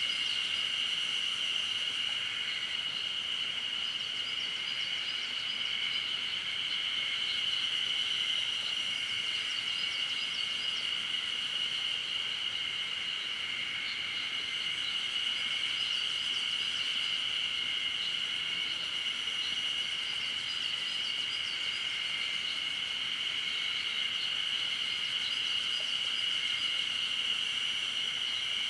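Steady chorus of singing insects in a forest: a continuous high-pitched drone that never lets up, with faint repeated chirps higher up coming and going.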